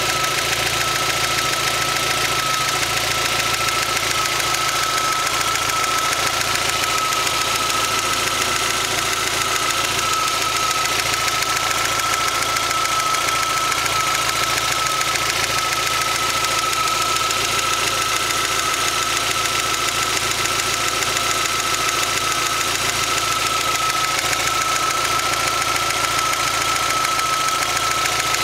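Hot MG ZR 1.4 16V's K-series four-cylinder engine running steadily at idle with a loud rapid tapping rattle, "tatatatatata", a noise that appears only once the engine is hot. A steady high whine runs under it.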